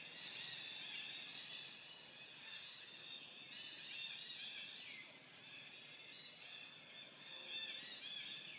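Faint chorus of many small birds chirping over one another without pause.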